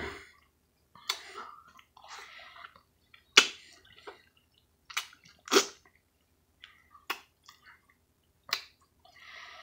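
Wet mouth sounds of someone eating a soft, juicy ripe mango: biting and chewing the flesh off the fruit, with sharp smacks and slurps at irregular moments about a second apart.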